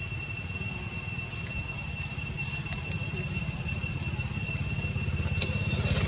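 An engine idling steadily, with a fast even low pulse, growing louder toward the end. A steady high-pitched tone runs above it.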